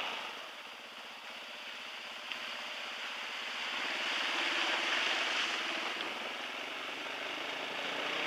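Dirt bike rolling down a rocky trail with its engine running low under a steady rush of wind and tyre noise; the rushing hiss grows louder around the middle as the bike crosses a small stream running over the rocks.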